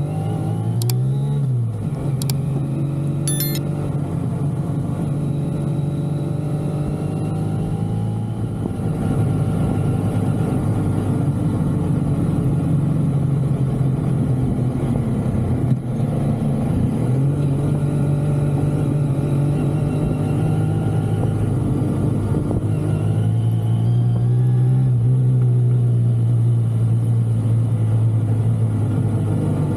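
Kawasaki S2A's 350 cc air-cooled two-stroke triple running at low road speed, its revs rising and falling several times with throttle and gear changes.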